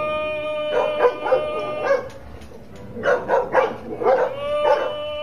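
Balut vendor's street cry, a long drawn-out call held on one note, heard twice, with short sharp dog barks in between.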